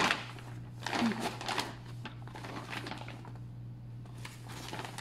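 Plastic bag rustling and crinkling in short bursts as a box is pulled out of it, with a brief bit of voice about a second in and a steady low hum underneath.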